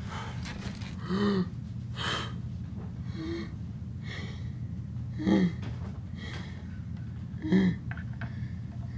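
A badly hurt man gasping for breath: about seven short gasps, roughly a second apart, over a low steady hum.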